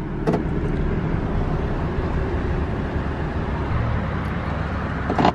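Steady road and engine noise heard inside a vehicle's cab while driving, with a sharp click near the end.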